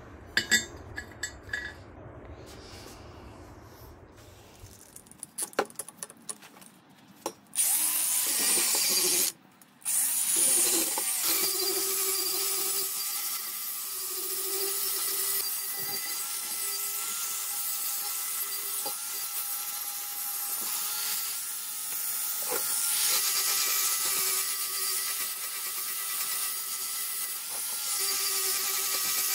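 A few metallic clinks as metal parts are handled on a steel car wheel, then an angle grinder starts about seven seconds in, stops briefly, and runs on steadily with a level whine as it grinds into the steel wheel, throwing sparks.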